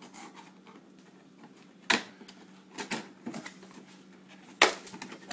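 Cardboard packaging being opened and handled by hand: scattered taps and rustles, with two sharp snaps about two seconds in and near the end.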